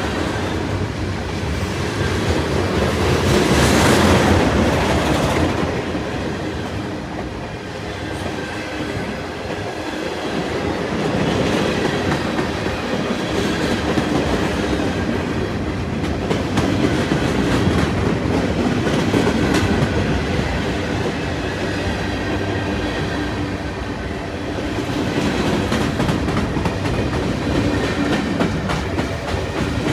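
Freight train cars rolling past, steel wheels clicking over the rail joints in an uneven, continuous rhythm, louder and quieter in slow swells.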